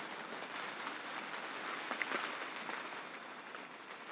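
Steady rain pattering on the fabric of a dome shelter tent, heard from inside, with a few faint ticks of drops.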